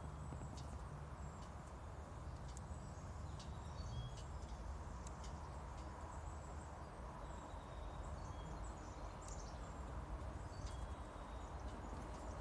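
Outdoor ambience: a steady low rumble with scattered short ticks and brief high chirps from small birds.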